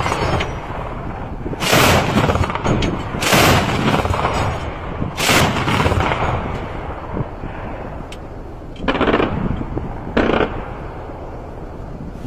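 A heavy mounted automatic gun firing short bursts at close range: three loud bursts of about half a second each in the first six seconds, then two fainter ones in the second half.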